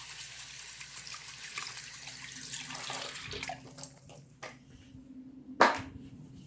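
Water running from a tap into a sink while a silicone pop-it fidget is rinsed under it. The water sound stops about halfway through. Small handling clicks follow, then one sharp knock near the end.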